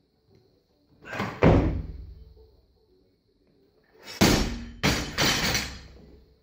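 About a second in, two heavy thuds as a weightlifter snatches a bumper-plated barbell and catches it. At about four seconds the barbell is dropped from overhead: a loud crash of the bumper plates hitting the platform, then two quicker bounces that die away.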